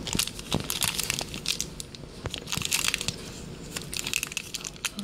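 Shopkins blind bag wrapper crinkling in fingers as they squeeze and pull at it, trying to tear it open. The crackling comes in irregular bursts, because the bag is hard to open.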